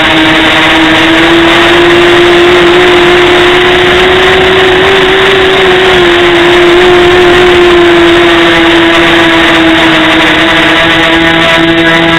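Xuas MR 270 multirotor's motors and propellers whining steadily in flight, picked up loud and close by the small camera riding on it, over a rushing hiss. The pitch climbs a little in the first half, then eases gently back down.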